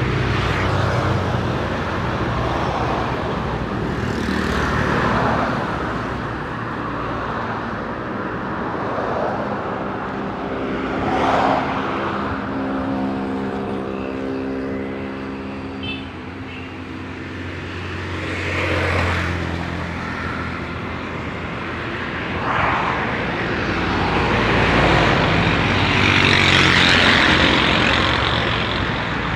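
Road traffic close by: motor vehicles passing one after another in swells, with an engine hum held for several seconds in the middle.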